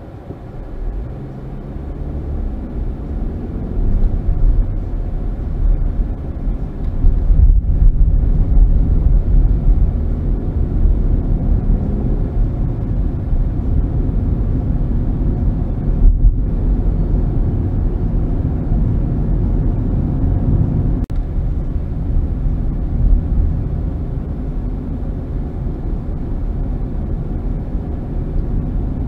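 Car engine and road noise picked up from inside the cabin by a dashcam, growing louder as the car pulls away from a standstill in the first few seconds, then running steadily at around 25 mph, with two brief dips in the sound.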